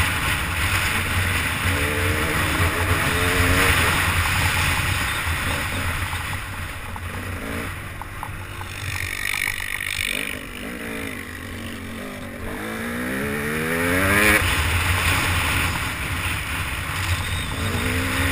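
Trail dirt bike's engine under way, its note rising several times as the throttle opens, with the longest climb about two-thirds of the way in. Wind rush on the microphone runs under it.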